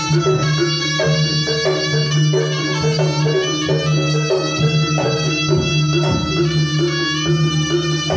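Live East Javanese jaranan gamelan music: kendang drums beating a steady rhythm under a sustained, reedy shawm-like (slompret) melody and ringing metallophones, with a steady low tone held until near the end.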